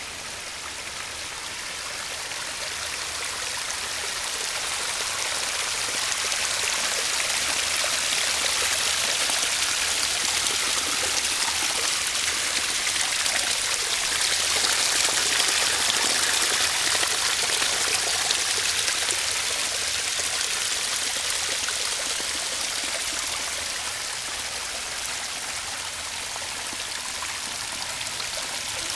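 Sewage splashing and running as it spouts up through the holes of an overflowing sewer manhole lid and flows down a slope. It grows louder toward the middle, then eases. This is a sanitary sewer overflow set off by a 0.50-inch rain.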